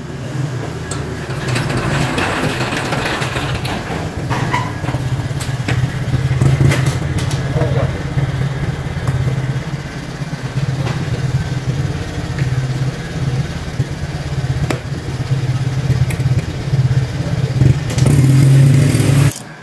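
Small motorcycle engine idling steadily, growing louder near the end as it revs.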